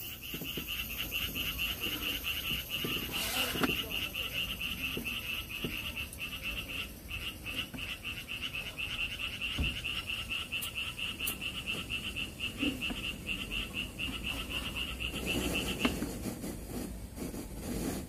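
An animal call: a steady, high, rapidly pulsing buzz that stops about 16 seconds in.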